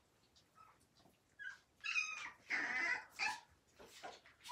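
Puppies whimpering and yipping while crowding a food plate: quiet at first, then a few short, high-pitched whines and yelps from about a second and a half in.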